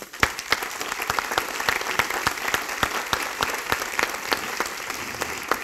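Audience applauding, many hands clapping at once; the clapping eases off near the end.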